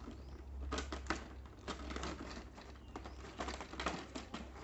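Plastic toy train track pieces clicking and rattling against a vacuum-formed plastic packaging tray as they are handled, in a string of light, irregular taps.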